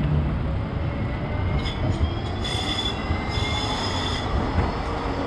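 City tram rolling past with a steady low rumble, its steel wheels squealing on the rails in thin high tones from about two to four seconds in.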